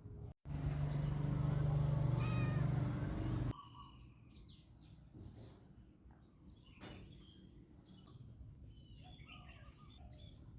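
Domestic cat meowing in one drawn-out, loud call of about three seconds that cuts off sharply, followed by birds chirping.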